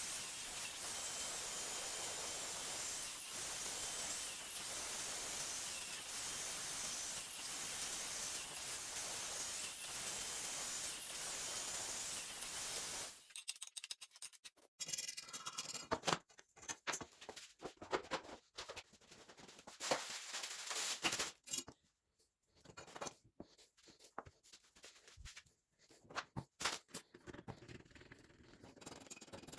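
A steady hiss that cuts off suddenly about halfway through, followed by scattered clicks, taps and light knocks of small objects being handled.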